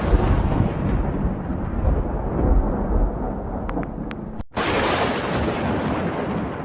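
Deep thunder-like rumbling sound effect in two long rolls: the first fades and cuts off abruptly about four and a half seconds in, then a second, equally loud roll starts at once and fades toward the end.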